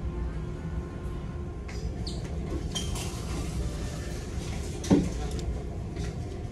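Steady low rumble of a ferry's engines under way, heard inside the ship's dining room, with light clicks of wooden chopsticks and tableware. A single louder knock comes about five seconds in.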